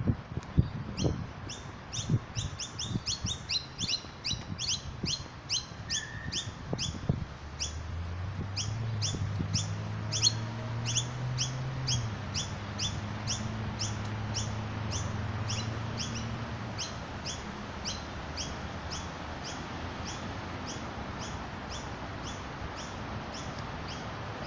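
A small bird chirping over and over in a steady rhythm, about two to three short high chirps a second. A few low thumps early on, and a low hum swells in about eight seconds in and fades in the second half.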